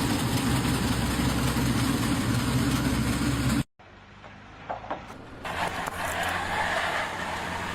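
An engine running steadily, cutting off abruptly about three and a half seconds in. A quieter engine hum and a few knocks follow.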